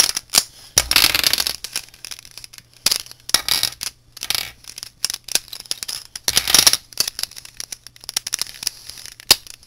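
Plastic Rubik's cube pieces clicking and clattering as a layer is taken apart and the loose pieces handled: many sharp clicks with a few short scraping rustles.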